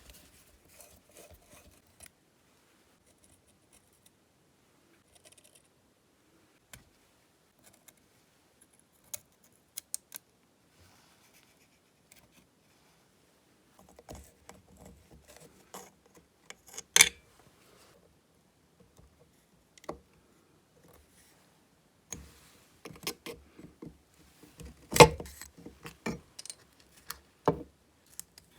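Small metal parts and hand tools being handled while a chainsaw is taken apart: scattered clicks, scrapes and light clinks, sparse at first and busier in the second half, with two sharper knocks about halfway through and near the end.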